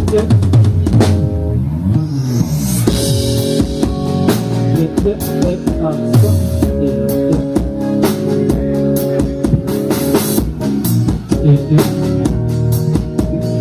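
Live band playing rock at a soundcheck: guitar and bass over a drum kit, with sliding guitar notes in the first few seconds.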